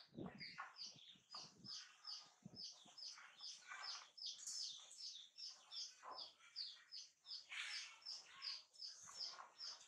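Faint bird chirping in a steady rhythm, about three short falling chirps a second.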